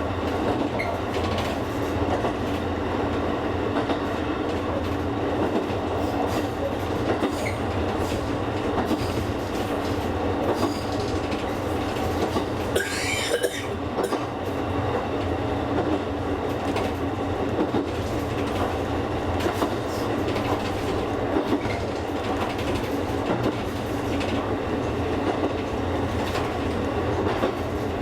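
Kakogawa Line electric train running along the track, with steady running noise and faint clicks from the wheels on the rails. A brief, wavering wheel squeal comes about halfway through.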